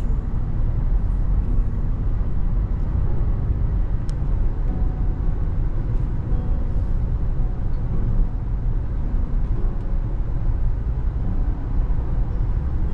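Steady road and engine noise inside a moving car's cabin: an even low rumble with no change in pace.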